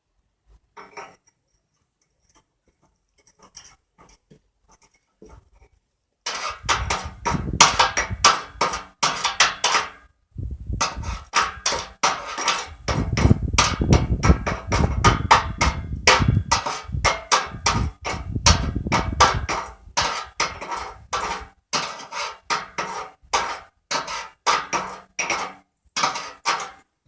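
Rapid, repeated sharp knocks, about three a second, starting about six seconds in and running on with a brief pause near ten seconds.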